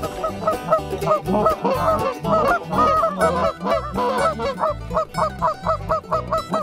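Canada geese honking: many short calls in quick, overlapping succession, settling into an even run of about three honks a second near the end.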